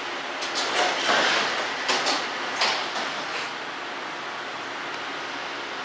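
MAX light-rail car doors opening at a stop: a quick series of clunks with a sweeping mechanism sound over about three seconds, then steady background noise.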